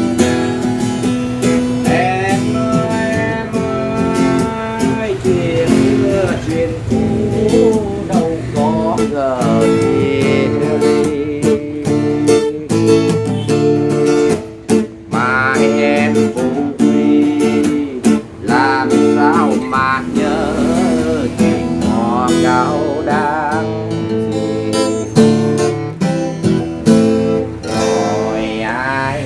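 Budget student acoustic guitar with a spruce top and pressed-wood back, played solo in an improvised instrumental with a pick. It mixes strummed chords with picked melody lines whose high notes waver in pitch.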